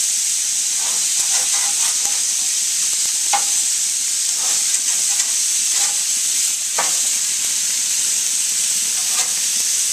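Marinated chicken thighs sizzling steadily on hot gas grill grates. Several short clinks and scrapes come through as a metal spatula and fork turn the pieces.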